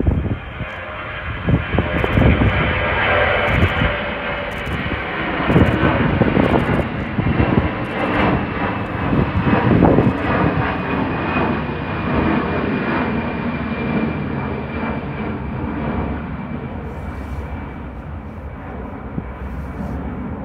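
Airbus A319 airliner's jet engines at takeoff climb power, a loud roar with a high whine that slowly falls in pitch. The roar fades gradually over the second half as the aircraft climbs away.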